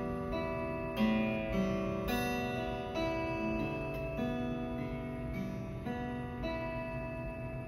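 Acoustic guitar playing a slow melody of single plucked notes, each ringing on into the next.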